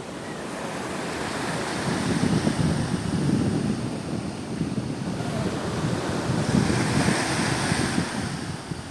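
Sea waves washing, with wind buffeting the microphone in an uneven low rumble. A wave swells louder about seven seconds in.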